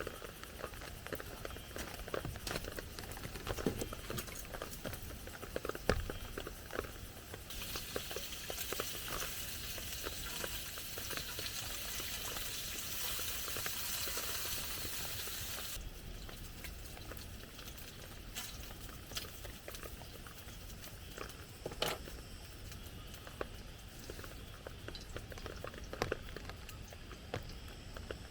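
Rain pattering on a small tarp: irregular drops tapping close by, with a steady hiss joining for about eight seconds in the middle.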